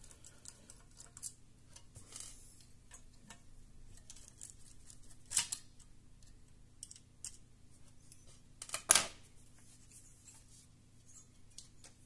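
Light clicks and scrapes of a small screwdriver working the screws of a graphics-card cooler's plastic fan shroud, with two louder sharp clacks of plastic and metal being handled, about five and nine seconds in.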